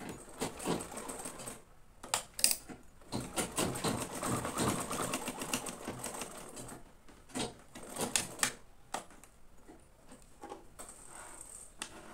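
Domestic zig-zag sewing machine stitching in several short runs, its needle clattering rapidly, starting and stopping over the first nine seconds or so before falling quiet.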